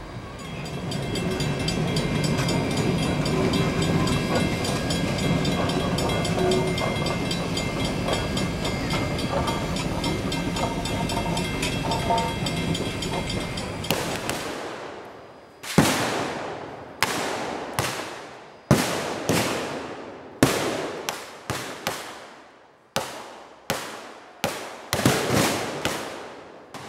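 Passenger cars of a steam-hauled train rolling past on jointed track, a steady rumble with thin high ringing tones from the wheels, which cuts off after about fourteen seconds. Then a string of about fifteen blank gunshots from a staged gunfight, irregularly spaced, each with a short echo.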